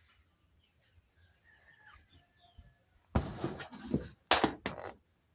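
Faint bird chirps, then a loud burst of rough, rustling noise about three seconds in, followed a second later by a sharper burst and a few shorter ones.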